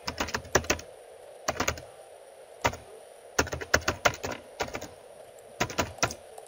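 Computer keyboard being typed on: quick clicking keystrokes in short irregular bursts of a few keys each, with brief pauses between the bursts.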